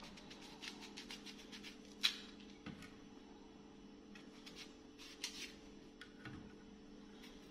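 Small knife paring and cutting a crisp apple: a string of short crisp scrapes and clicks, the loudest about two seconds in and another cluster a little after five seconds, over a steady low hum.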